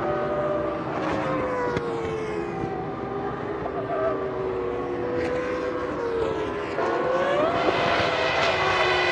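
Formula One cars' V10 engines running at racing speed. Their pitch slides slowly down, then about seven seconds in it steps up, grows louder and rises again.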